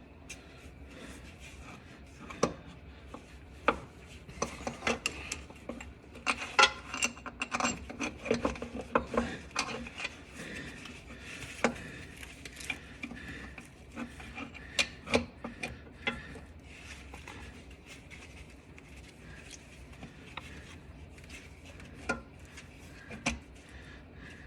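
Hand tools working a starter mounting bolt under a car: irregular clicks and taps over rubbing and scraping, thickest in a run about a quarter of the way in and again past the middle.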